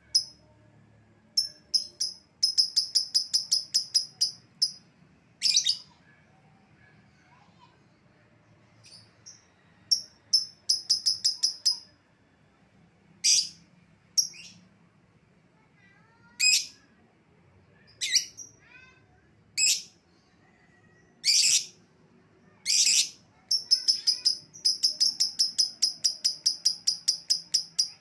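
Lovebird calling: runs of rapid, high chattering notes at about eight a second (the long "ngekek" call), the longest run lasting about four seconds near the end, with single harsh shrieks between the runs.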